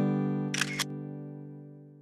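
The last strummed acoustic guitar chord of the outro music rings out and fades away. About half a second in, a brief clicking noise sounds over it, like a camera shutter sound effect.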